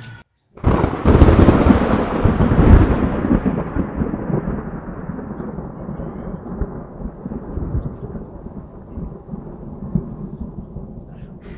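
A thunderclap about half a second in, followed by a long rolling rumble that dies away over about ten seconds, its high end fading first.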